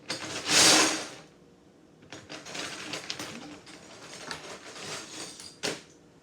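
Loose Lego bricks clattering as a pile is sifted through, loudest for about a second near the start, then scattered clicks of bricks being handled, with one sharp click near the end.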